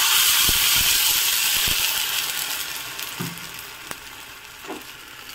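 A little water poured into a tadka pan of hot oil with mustard seeds, cumin, green chillies, curry leaves and sugar, sizzling loudly at first and then dying down gradually over a few seconds.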